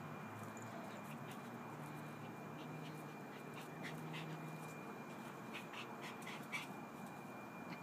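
Pug puppy panting and snuffling faintly, with a scatter of short light ticks in the second half.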